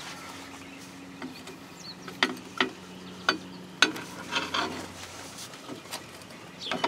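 Metal drum-brake parts, shoes and spring hardware, being handled and pulled off a rear brake backing plate: about four sharp metallic clicks a second or so apart, then a short scraping rattle.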